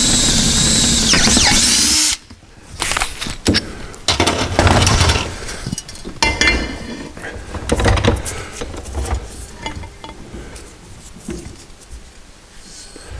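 A power drill boring a pilot hole through a metal exhaust pipe. It runs loud and steady, its pitch dips briefly, and it stops abruptly about two seconds in. Scattered knocks and clatters follow as the metal pipe is handled on the steel bench.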